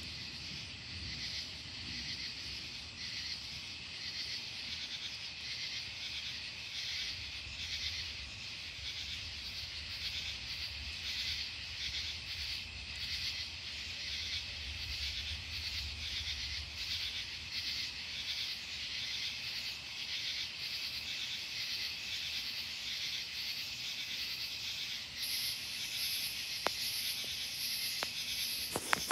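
A chorus of night insects chirping in a steady, fast pulsing rhythm. Under it a low rumble of distant thunder swells and fades in the first half.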